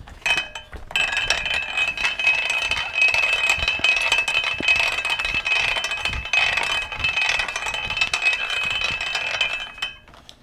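Hand-cranked tire roller working a steel wagon tire: gears clatter and the steel rings steadily as the hoop is rolled through to shrink it to a smaller diameter. The sound starts about a second in and stops shortly before ten seconds.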